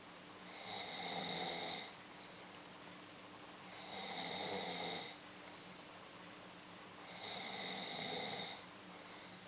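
A man snoring in his sleep: three long, rasping snores about three seconds apart, with quieter breathing between them.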